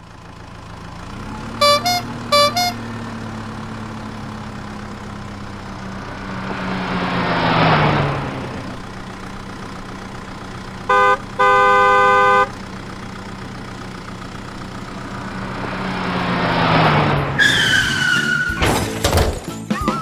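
Cartoon vehicle sound effects: an engine hums steadily, a horn beeps twice, a vehicle passes by with its pitch falling, the horn sounds one long blast, and another vehicle passes. Near the end comes a falling squeal, then a run of sharp clatters.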